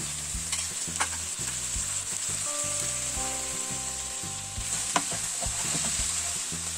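Chicken drumettes sizzling in hot oil and marinade in a nonstick frying pan while being stirred and turned. There are two sharp knocks, about a second in and near five seconds in.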